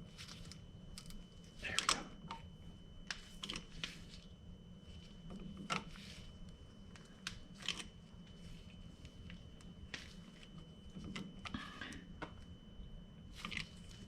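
Scattered light clicks and rustles of hand work with a wrench and parts at a brake caliper's bleeder valve, with a few sharper taps about two, six and eight seconds in.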